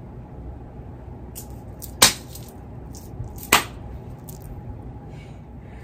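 Two sharp clicks about a second and a half apart, with a few fainter taps, as toiletry containers are handled, over a steady low room hum.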